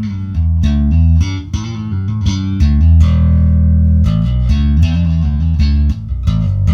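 Electric bass played slap-style through a Zipper optical compressor pedal: a busy line of slapped and popped notes with sharp, bright attacks and a full, even low end.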